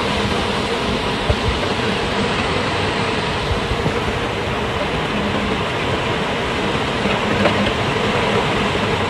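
Strong storm wind as a tornado passes at a distance: a steady, dense rush of noise, with gusts buffeting the phone's microphone.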